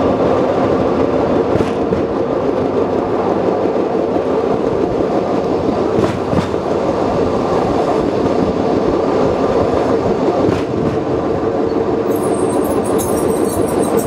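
Open trolley train running over old jointed track: a steady rumble of steel wheels on rail, with a few clacks at rail joints. A high wheel squeal starts near the end as the train takes a curve.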